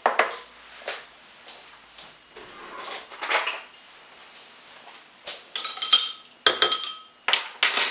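A metal measuring spoon clinking and scraping against a glass mixing bowl while a cornflour and pineapple-juice mixture is stirred. Soft handling noises come first, then from about halfway a quick run of sharp, ringing clinks.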